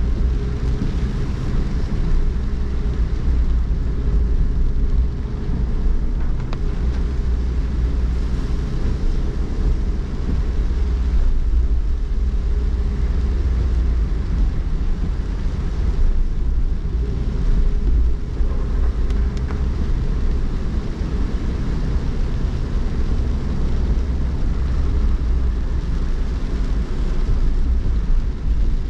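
Car driving slowly on a rain-wet street, heard from inside the cabin: a steady low road-and-engine rumble with a faint hum, under an even hiss of tyres on wet pavement and rain.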